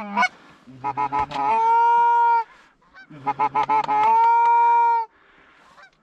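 Goose call blown in two identical series: a quick run of short clucks, then a long, flat drawn-out note that stops abruptly.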